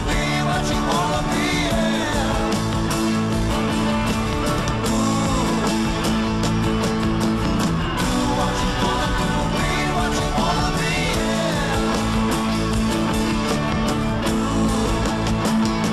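Rock song with singing over a steady beat.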